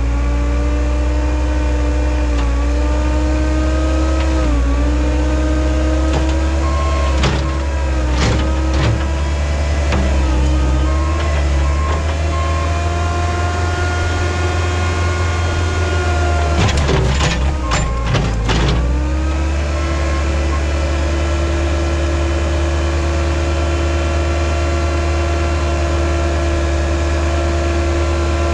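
Skid steer loader's engine running steadily with a deep rumble, its pitch sagging briefly now and then under load. Sharp metallic clanks come in two clusters, around a quarter and about two-thirds of the way through.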